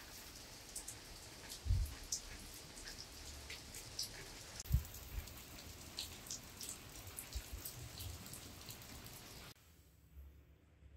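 Steady rain falling, with many drops ticking and two dull low thumps, the louder about five seconds in. The rain sound cuts off abruptly near the end.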